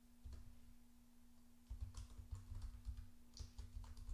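Computer keyboard typing: faint, irregular keystroke clicks in short runs, with a low steady hum underneath.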